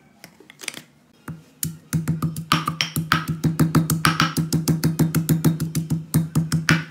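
Stone pestle pounding garlic and herbs in a granite mortar: a few scattered taps, then from about two seconds in rapid, even strokes, about six a second, each a deep thud with a sharp click.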